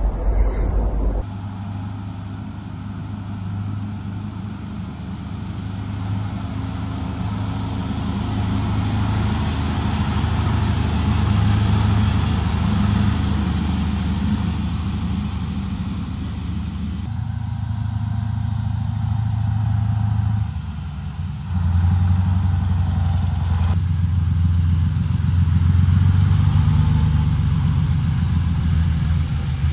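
Engines of heavy multi-axle military trucks running as the vehicles move over snow: a steady low drone whose sound changes abruptly several times, with the shots.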